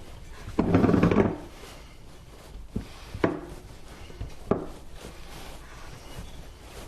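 Hands kneading dumpling dough in a glass Pyrex mixing bowl: a brief rubbing, squishing burst, then a few sharp knocks of the bowl against the counter.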